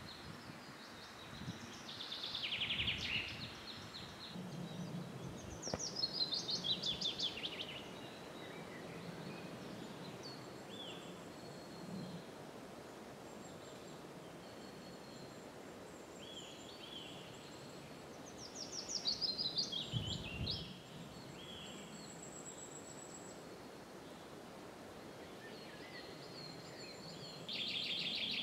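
Songbirds singing: several separate songs, the loudest two a quick run of notes falling steadily in pitch, one about six seconds in and one about nineteen seconds in, over faint steady background noise.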